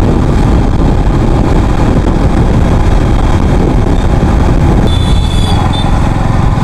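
Motorcycle riding at speed: steady wind rush over the helmet-mounted microphone with the engine running underneath, the bike slowing near the end. A brief thin high tone sounds about five seconds in.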